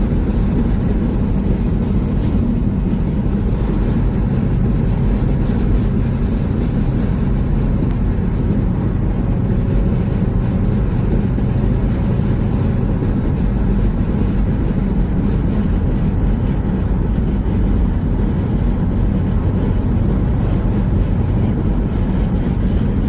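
VW T4 Transporter van driving at a steady cruising speed: an unbroken drone of engine and road noise, mostly low-pitched, that holds the same level throughout.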